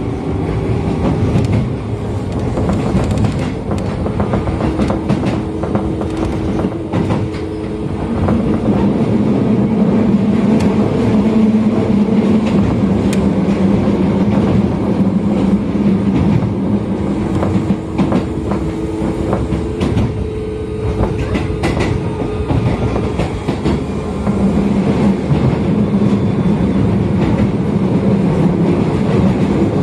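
Keio commuter train running on the Dobutsuen Line, heard from inside the carriage: a steady rumble of wheels on rail with a low hum and scattered clicks of the wheels passing over the track.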